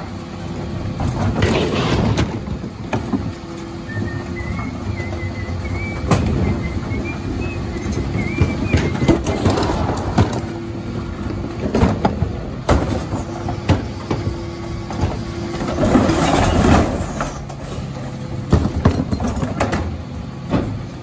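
Hydraulic bin lifts on a Dennis Elite 6 refuse lorry working through a tipping cycle, with a steady hydraulic and engine hum. Wheelie bins are tipped into the hopper with repeated knocks and clatters of plastic bins and falling mixed recycling.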